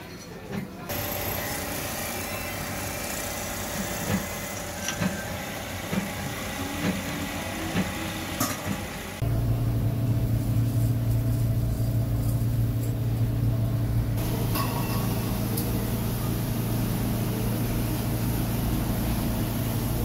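Scattered clinks of metal parts over a noisy workshop background. About nine seconds in, the sound changes abruptly to a loud, steady, low machine hum, and a hiss joins it a few seconds later.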